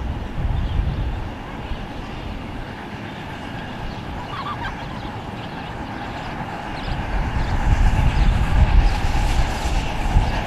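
7.25-inch gauge live steam Union Pacific Big Boy model locomotive hauling a train of scale freight cars: the running locomotive and wagon wheels on the rails, getting louder about two-thirds of the way in as it comes closer.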